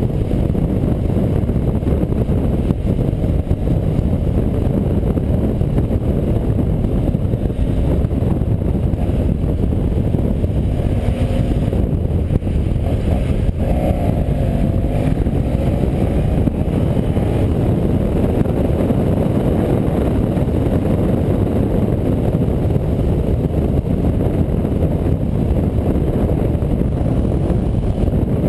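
Motorcycle riding at road speed: a steady low rush of wind on the microphone over the drone of the engine, with a brief wavering rise and fall in pitch around the middle.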